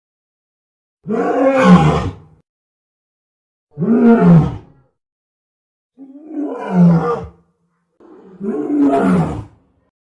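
Giant gorilla roar film sound effect: four separate roars, each about a second long, with silence between them.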